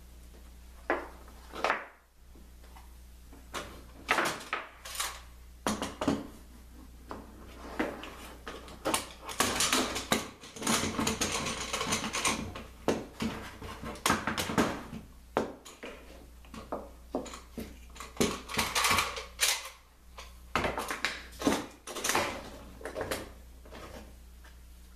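Red steel bar clamps clattering and clicking as they are handled and set, with thin Baltic birch plywood strips and wooden blocks knocking against each other: a long run of irregular knocks and rattles, busiest in the middle.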